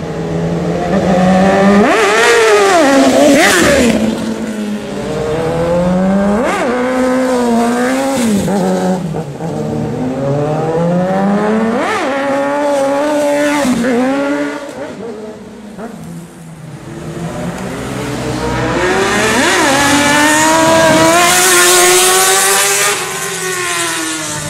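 Sportbike engines revving hard and accelerating past, the pitch climbing and dropping again and again as they rev and pass close by, with a brief lull about sixteen seconds in.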